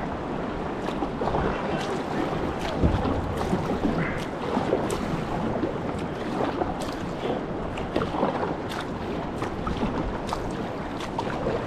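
Kayak paddle strokes splashing and dripping, with the water lapping and wind buffeting the microphone.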